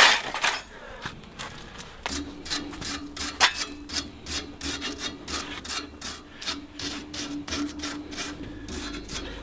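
A wire brush scraped repeatedly over a soil-caked steel cultivator tine, in quick strokes of about three or four a second, to clear it before the worn share is swapped. A steady hum starts about two seconds in.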